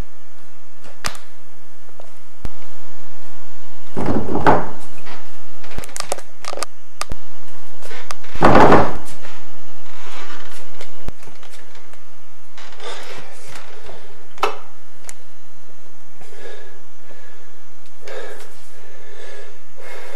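Two loud, rough bursts of noise about four seconds apart, followed by quieter clicks, thunks and scraping as an interior door is handled and opened.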